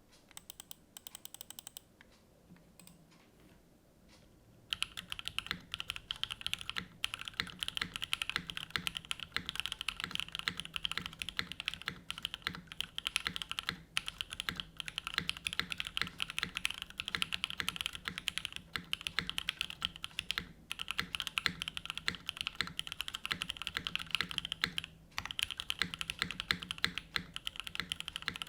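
Typing on a Rama U80-A mechanical keyboard with stock prelubed C3 Tangerine v2 linear switches (62 g) and GMK keycaps. A few scattered keystrokes at first, then continuous fast typing from about five seconds in, with a couple of brief pauses.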